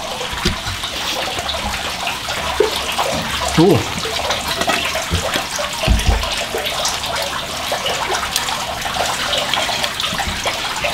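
Steady rush of running water, with a soft low thump about six seconds in.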